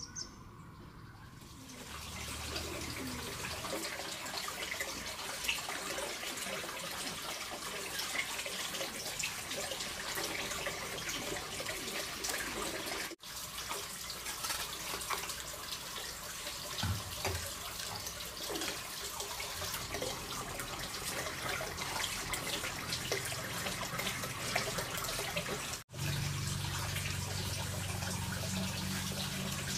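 Water running steadily from a tap and splashing into a sink, with two brief abrupt breaks.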